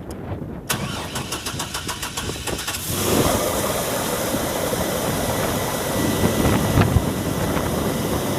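A 1998 Chevy Blazer's 4.3 litre V6 being started: the starter cranks it with a rapid, even chugging for about two seconds. The engine catches about three seconds in and settles into a steady idle, its first start after a new alternator was fitted.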